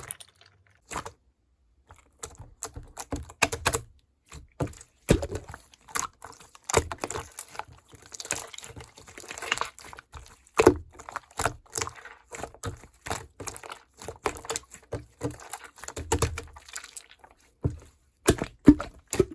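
Irregular small clicks, taps and knocks of kitchen containers and utensils being handled, with a stretch of softer continuous noise about eight to ten seconds in.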